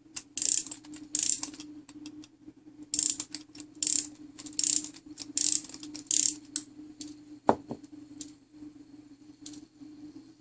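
French clock movement being wound with a key for the first time: the mainspring's click and ratchet wheel ratcheting in short bursts as the key is turned, about seven turns in quick succession. A single sharp click comes about seven and a half seconds in.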